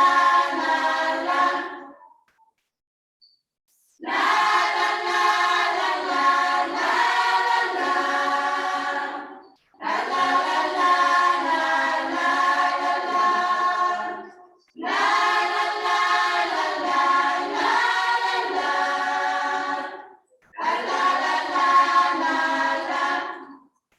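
Choir singing a Christian hymn in held notes, in phrases of a few seconds broken by short silences, one longer gap about two seconds in.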